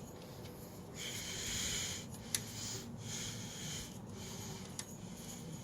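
Quiet hand-work noises: two soft breathy hisses, about a second in and about three seconds in, with a couple of light clicks of tools or parts being handled.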